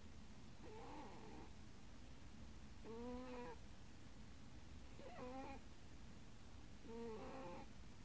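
Sleeping cat snoring faintly: a short snore with a clear, slightly wavering pitch on each breath, four in all, about every two seconds.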